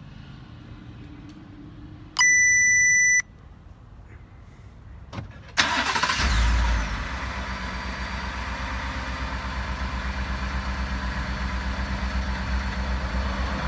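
A single one-second electronic beep. A few seconds later a Ford F-150 pickup's engine starts by remote start, flaring for about a second before settling into a steady idle.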